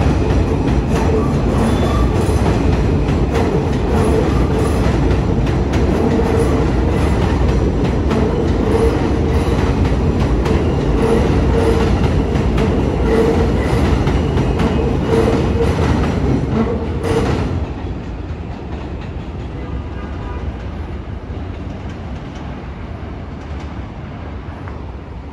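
Alstom R160A subway train running past on the tracks, with wheels clacking over the rail joints and a steady tone. About 17 seconds in, the sound drops off sharply as the train clears, leaving a fainter, fading rumble.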